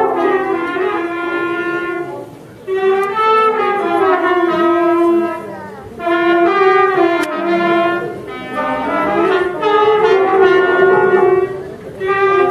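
Brass band playing a slow melody of long held notes in phrases, breaking off briefly about two, six and twelve seconds in.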